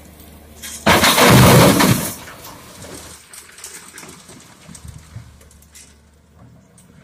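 A bucketload of gravel dumped from a Komatsu PC200-6 excavator into a Canter dump truck's bed: a sudden loud crash and rattle of stones about a second in, lasting about a second and dying away by about three seconds. A diesel engine hums steadily underneath.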